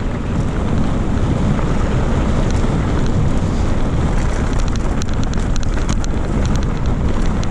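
Wind rushing over the microphone of a mountain bike descending a loose gravel trail, with the tyres crunching over stones and scattered sharp clicks and rattles from the bike, more frequent about five seconds in.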